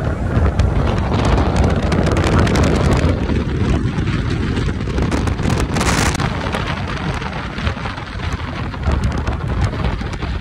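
Wind rushing over the microphone with road and traffic noise at freeway speed, filmed from a moving vehicle. The noise changes abruptly about three seconds in, and there is a brief hiss about six seconds in.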